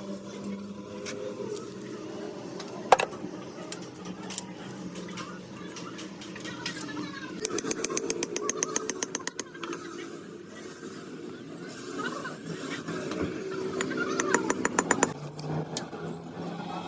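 Metalworking workshop machinery: a low steady running hum, with a sharp knock about three seconds in and two runs of rapid ticks, about nine a second, in the middle and near the end.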